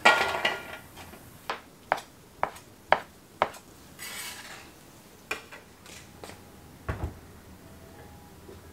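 Chinese cleaver on a wooden cutting board. A scraping clatter as chopped celery is swept off the board, then about five sharp chops evenly spaced half a second apart, and a few more irregular chops a little later.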